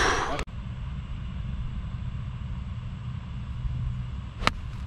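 A golf club strikes a ball once near the end: a single sharp crack, the loudest sound here. Under it runs a steady low rumble, after a brief rush of noise that cuts off about half a second in.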